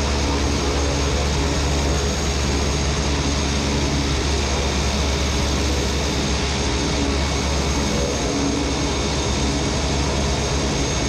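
Cessna 208 Caravan's PT6 turboprop engine and three-blade propeller running steadily at taxi power, heard up close from outside the aircraft: a loud, even rush with a deep drone underneath and a thin, steady high whine.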